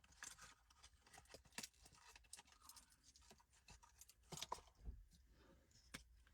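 Near silence with faint, scattered clicks and rustles of small objects being handled.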